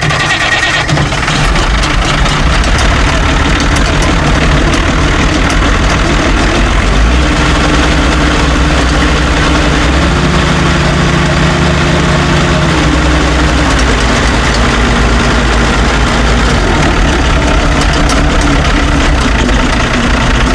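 Old farm tractor engine just catching after being started, then running steadily. Its speed rises about seven seconds in, is highest from about ten to thirteen seconds, then drops back to a lower steady speed.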